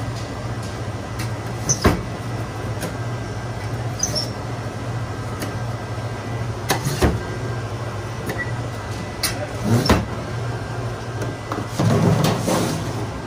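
Wall-mounted lever-action French fry cutter pushing whole potatoes through its blade grid: a sharp clunk with each pull of the handle, three times, over a steady low hum. Near the end, a longer rustle as the cut fries are handled in a plastic tub.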